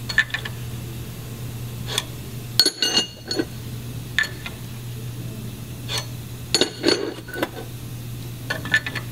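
Steel connecting rods clinking against the metal mandrel and body of a dial bore gauge as they are set on, rocked back and forth and lifted off: sharp metallic clinks with a short ring, in small clusters every second or two, over a steady low hum.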